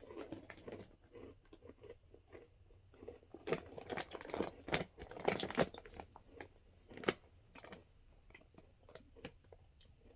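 Ridged potato chips being bitten and chewed close up: a run of sharp, crisp crunches a few seconds in, thinning out near the end.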